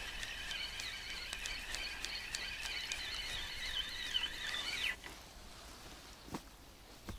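Spinning reel on a feeder rod being wound in: a steady high whine from the gearing with light clicks, which wavers and stops abruptly about five seconds in. This is the feeder being retrieved after a missed strike. Two soft knocks follow near the end.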